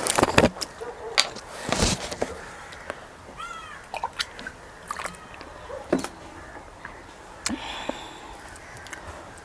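Close-miked eating sounds: chewing and mouth smacks on pork and intestine, with scattered sharp clicks. A few short chirping calls come in about three and a half seconds in.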